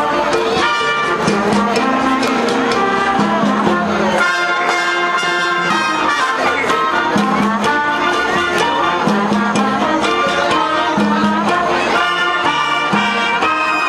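Street orchestra playing live, with a steady repeating bass figure under the melody.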